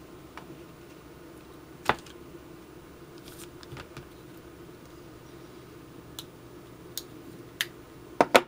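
Handling noise on a tabletop as a leather sheath and tools are picked up and set down: scattered light clicks and taps, a sharp knock about two seconds in and a loud double knock near the end, over a low steady hum.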